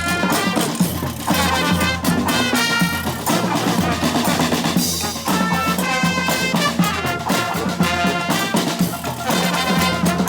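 Brass band playing live: horns over a drum beat, with a short break in the horn line about halfway through.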